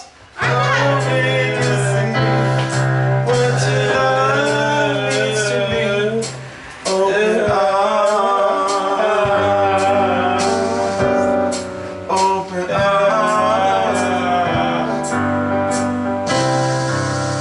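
Music: a man singing a melody over accompaniment with long-held low notes.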